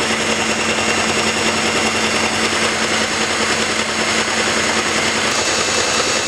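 Electric hand mixer running steadily, its two beaters spinning through brownie batter in a bowl.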